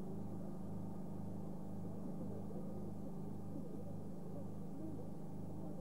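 Steady low mechanical hum that pulses about twice a second.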